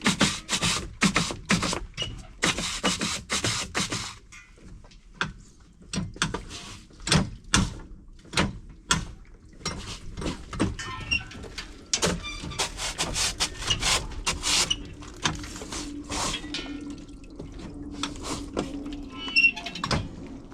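Footsteps crunching on a bush walking track: many irregular steps, a few a second, loudest in the first few seconds. A low steady hum comes in about halfway through.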